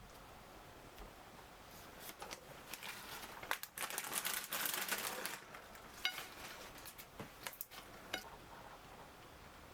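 Rustling and crinkling as something is handled, densest a few seconds in, followed by a handful of sharp clicks.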